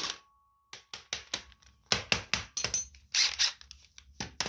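Socket ratchet clicking in several short, uneven runs as the 3/4-inch bolt holding the mower's front wheel is turned loose.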